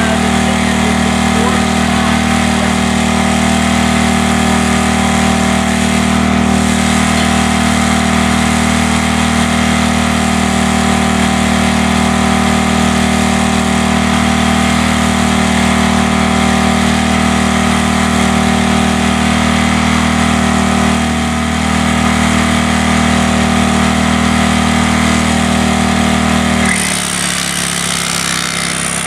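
Corded electric hammer drill hammering steadily into concrete, a loud constant machine drone that shifts to a different, thinner note near the end.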